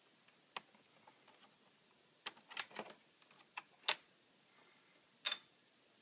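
Sparse small clicks and taps of a screwdriver and fingers working on the HP G72 laptop's Wi-Fi card as it is taken out of its slot, the sharpest clicks about four and five seconds in.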